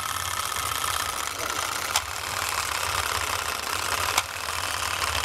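Clockwork motor of a vintage wind-up donkey-and-rider toy running with a steady whirr, with a sharp click about two seconds in and again about four seconds in.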